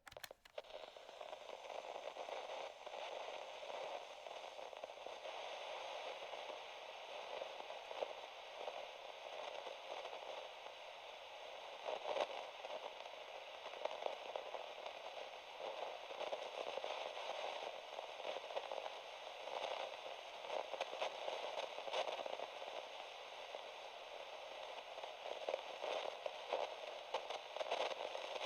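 Steady tape hiss and static from a cassette or dictaphone recording with no speech, with constant fine crackle and occasional louder pops and clicks.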